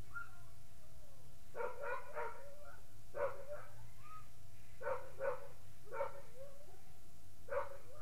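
Short, pitched bark-like animal calls, about nine of them, some in quick pairs and some single, over a steady low rumble.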